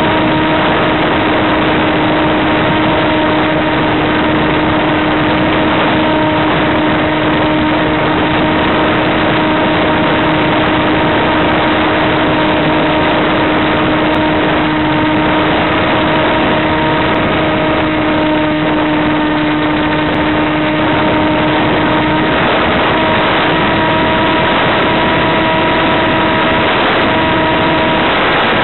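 An FPV RC plane's electric motor and propeller running at steady power, heard through heavy hiss on the onboard audio: a steady whine of several tones over a constant rush. The lowest tone drops out about 22 seconds in.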